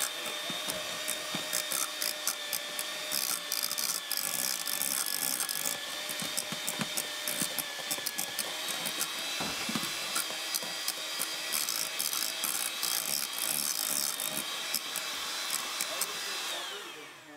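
Electric hand mixer running steadily with a whine and a rapid ticking rattle as its beaters whip cream, already whipped, in a stainless steel bowl to stiffen it further. Near the end it is switched off and the whine winds down.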